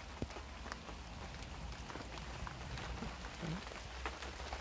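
Rain falling steadily in a thunderstorm, with many sharp individual drop hits over an even hiss and a low rumble underneath.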